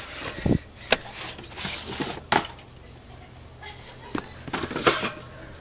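Handling noises: a low thud about half a second in, then a few sharp knocks and a stretch of rustling, as cardboard soda 12-pack cartons are set down and moved on a hard store floor.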